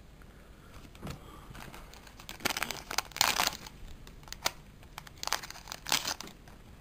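Foil booster pack wrapper crinkling as it is handled and torn open, in two bursts with a few small clicks between.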